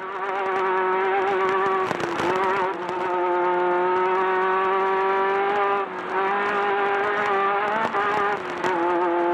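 Off-road race buggy's engine running hard at high, steady revs, easing off briefly about two, six and nine seconds in, with scattered knocks from the chassis over rough ground.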